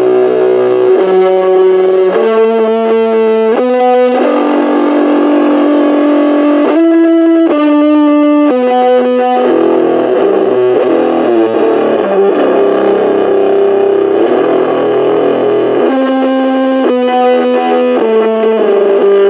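Electric guitar played through a Junkbox Amplification Death Metal Drone, a small battery-powered amp, giving a loud distorted tone. Held chords change every second or two.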